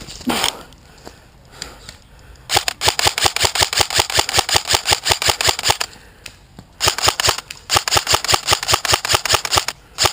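KWA KM4 SR10 electric airsoft rifle firing long rapid strings of shots, a fast even rattle of sharp cracks: trigger-spammed semi-auto, as full auto is not allowed. One string runs from about two and a half seconds in to six, and more follow from about seven seconds to near the end, with a short break in between.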